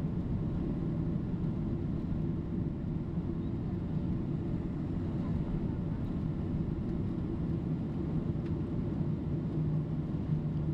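Boeing 767-300 cabin noise during the descent: a steady low drone of engines and airflow heard inside the passenger cabin, with a constant low hum running through it.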